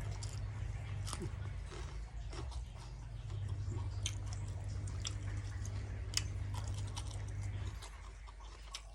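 A person chewing a mouthful of grilled pork salad close to the microphone, with scattered small clicks and smacks of the mouth. A steady low hum underneath stops about a second before the end.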